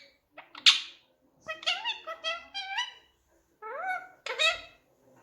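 Indian ringneck parakeet talking in a high, squeaky voice: a short sharp call, then two runs of quick pitched phrases with rising and falling glides.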